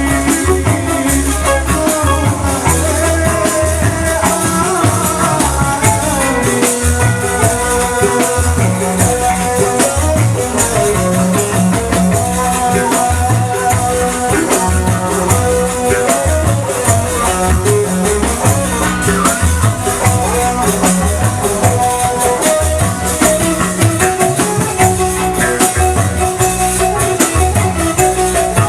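Live ensemble music with a steady pulsing drum beat under held melodic lines and a constant high shimmer of percussion.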